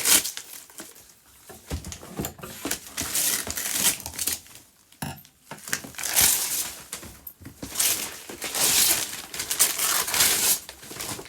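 Gift packaging being torn open and crumpled by hand, with irregular bouts of rustling, ripping and crinkling and a few sharp clicks.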